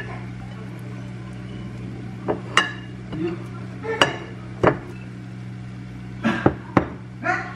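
Plastic rice paddle knocking and scraping against an enamel pot and ceramic plates as cooked rice is scooped out, with about eight short clinks and knocks, some in quick pairs. A steady low hum runs underneath.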